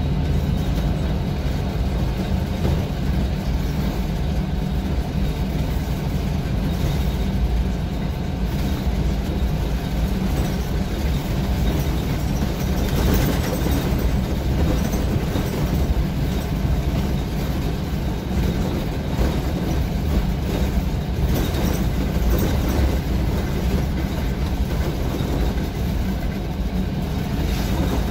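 City bus driving, its engine and tyre noise heard from the driver's cab as a steady low rumble.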